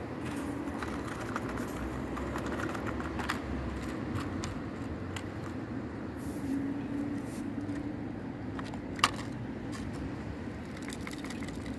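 Steady outdoor background noise with a low hum, scattered faint clicks, and one sharp click about nine seconds in; no firecracker goes off.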